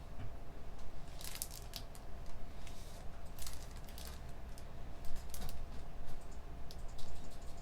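Computer keyboard typing in short, scattered bursts of keystrokes, over a steady low hum.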